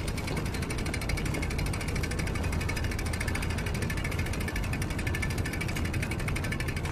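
Bicycle rear hub freewheel ticking rapidly and evenly as the bike is wheeled along on foot, over a steady low rumble of wind on the microphone.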